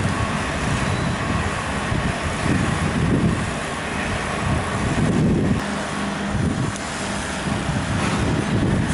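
Steady outdoor vehicle noise with a low rumble, mixed with wind buffeting the microphone.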